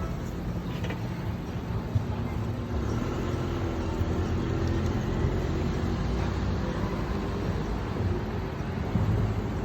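City street traffic: a steady low rumble of passing cars, with a vehicle's engine hum coming through about three seconds in.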